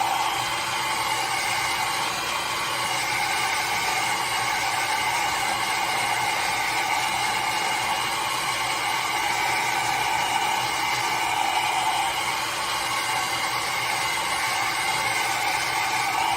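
CONFU ionic blow dryer running continuously while drying wet hair: a steady rush of air with a constant motor whine, swelling and dipping slightly as the dryer is moved about.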